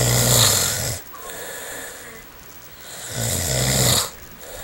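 A sleeping man snoring: two loud snores, one at the start and another about three seconds later, with a quieter breath in between.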